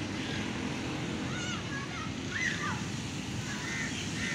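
Outdoor ambience dominated by a steady wind rumble on the microphone, with a few short, high, wavering calls in the middle, likely from children playing further off.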